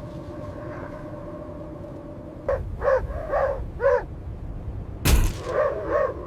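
Sled dogs barking over a steady low rumble: a quick run of four barks about halfway through, then louder barking near the end.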